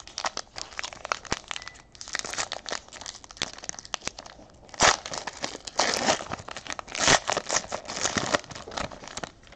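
Plastic shrink wrap being torn and crumpled off sealed boxes of trading cards: dense crinkling and crackling, with louder rips about five, six, seven and eight seconds in.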